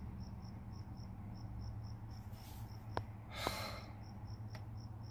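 A cricket chirping, short high chirps repeating evenly about four times a second, over a low steady hum. A short breathy noise comes about three and a half seconds in.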